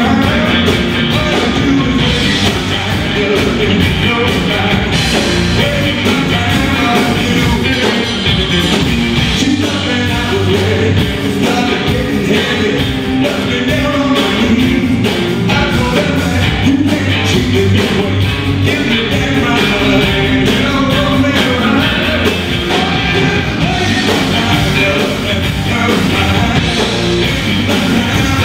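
Live band playing an up-tempo rock-and-roll number on electric guitars, bass and drums, loud and steady throughout.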